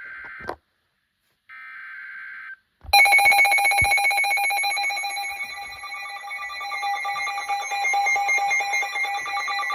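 Emergency Alert System broadcast alert starting. A short screeching SAME header data burst ends at the very start, there is a one-second gap, and another data burst comes about 1.5 s in. The loud steady attention tone then begins about 3 s in and holds, announcing a severe thunderstorm warning.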